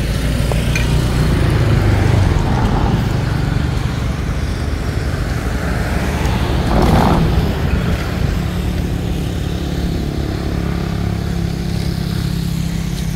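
Steady low rumble of a motor vehicle engine, swelling louder about seven seconds in.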